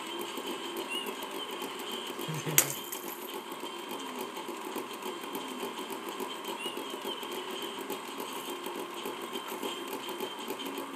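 A steady mechanical whir with fine rapid ticking throughout, and one sharp click about two and a half seconds in.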